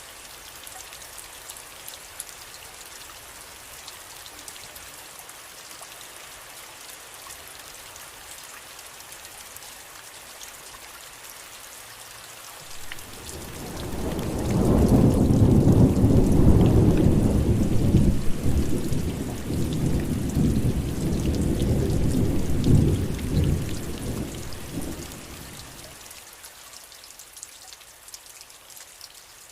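Steady rain, with a long rumble of thunder that builds about halfway through, rolls on for around ten seconds and fades away.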